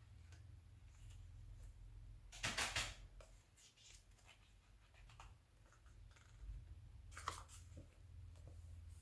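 Glossy magazine pages being handled and turned, with a rustle of paper about two and a half seconds in and another about seven seconds in, over a low steady hum.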